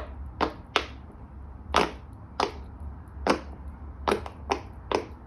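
Silicone bubbles of a large pop-it fidget toy being pressed through one at a time, each giving a short sharp pop: about eight pops at an uneven pace.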